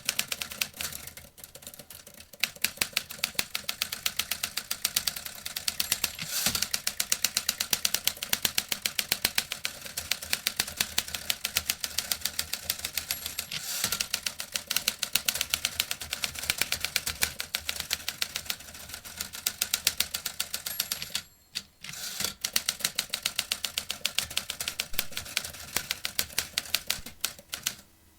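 Vintage typewriter being typed on quickly: a dense, steady run of key clacks, stopping briefly for a moment about two-thirds of the way through before typing resumes.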